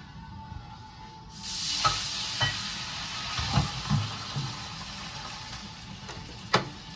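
Hot frying pan sizzling, starting suddenly about a second in and slowly dying down, with several clinks and knocks of cookware.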